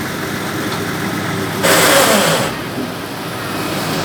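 Diesel engine of heavy road-construction machinery running steadily, with a brief loud burst of hiss-like noise about two seconds in.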